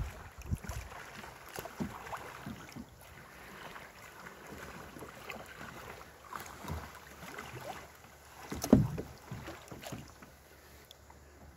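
Kayak paddling close by: paddle blades dipping and splashing in the water at an irregular pace, with small knocks and one louder thump about nine seconds in.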